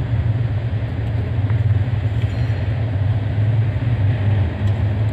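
Steady low mechanical rumble, like machinery or an engine running in the background, with no distinct events.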